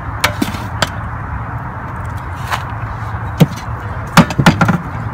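Scattered sharp knocks and taps, the loudest a quick cluster about four seconds in, over a steady low background hum.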